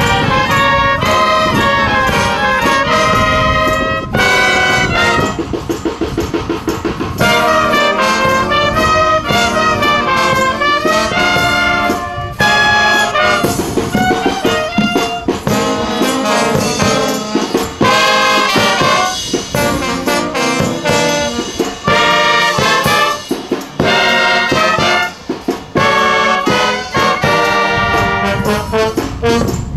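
A live brass and woodwind band playing, with trumpets, trombones, clarinets and flutes together.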